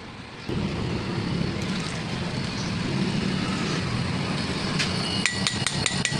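A steady machine drone starts suddenly about half a second in. Near the end come a quick run of light metallic taps with a ringing note.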